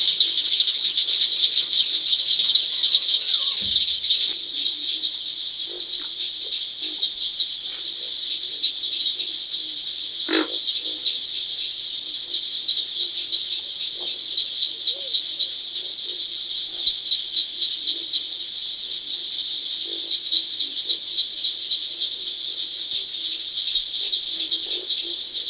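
Night chorus of swamp frogs and insects: a dense, steady, high-pitched pulsing trill, with scattered short low croaks and one louder call about ten seconds in.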